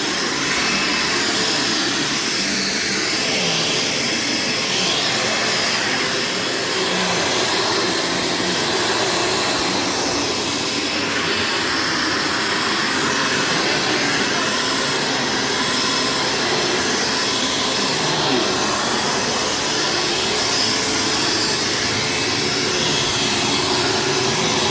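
1990 Dirt Devil Featherlite bagged upright vacuum running steadily, an even motor whir with no change in pitch.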